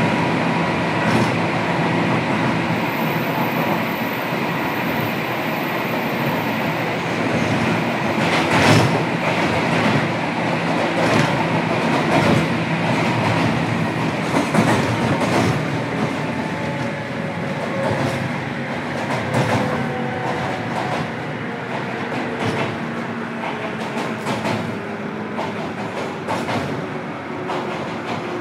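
Inside a JR Kyushu 103 series electric train's motor car at running speed: a steady rumble with wheels clicking over rail joints. From about halfway a whine falls steadily in pitch as the train slows down.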